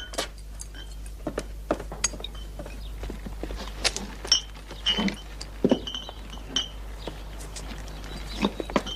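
Irregular clinking and knocking of small hard objects, some strikes ringing briefly.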